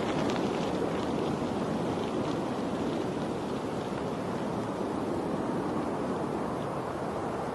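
Steady rushing of running water, even throughout, with a few faint high ticks in the first seconds.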